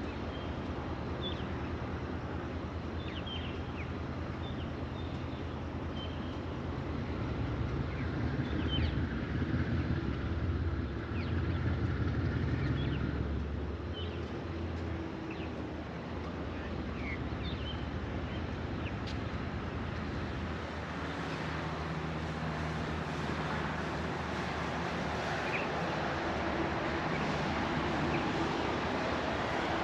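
Diesel locomotives idling steadily, a low engine hum that swells for a few seconds about a third of the way in, with birds chirping over it.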